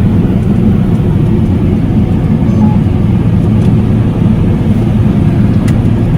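Combine harvester running steadily while harvesting wheat, heard from inside the cab as a loud, even, low drone of engine and threshing machinery.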